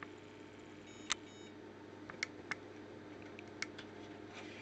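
Vending machine card reader: a short beep with a sharp click about a second in, then several more sharp clicks, over the machine's steady low hum.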